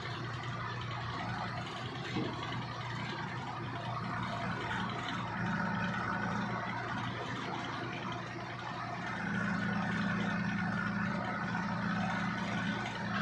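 Diesel engines of a JCB 3DX backhoe loader and an idling Mahindra Arjun 555 tractor running steadily while the backhoe works its arm to load the trailer. The engine note gets stronger around five seconds in, and again from about nine seconds, as the machine comes under load.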